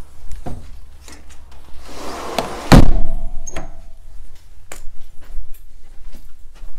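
Footsteps knocking on the floor of a mobile home, and a door pushed shut with a loud bang about three seconds in. A faint ringing tone lingers for about a second after the bang.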